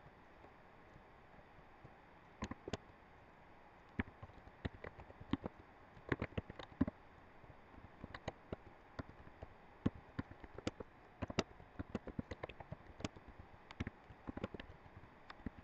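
Computer keyboard typing: irregular runs of key clicks, starting about two seconds in, over a faint steady hiss.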